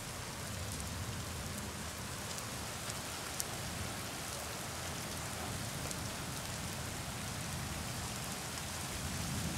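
Heavy rain falling steadily as an even hiss, with scattered drops ticking close by and one small tap about three and a half seconds in.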